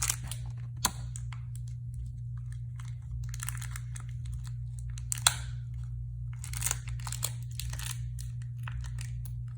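Small plastic toys and packaging being handled: scattered clicks and short crinkling rustles, with a sharp click about a second in and another about five seconds in, over a steady low hum.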